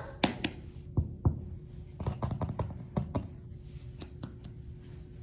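A series of irregular light taps and knocks, about a dozen, bunched together around the middle, over a faint steady hum.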